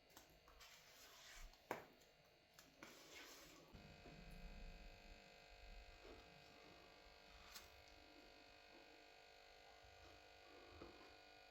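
Faint scraping strokes of a spreader working freshly mixed body filler, with one sharp click, for the first few seconds. Then only a faint steady hum.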